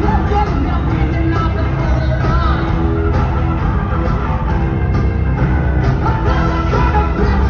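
Live rock band playing loudly with singing, heard from the stands of a large arena.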